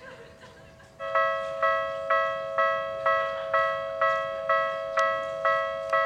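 Japanese railway level-crossing alarm starting about a second in and ringing steadily at about two strokes a second, each stroke a pitched, bell-like electronic tone.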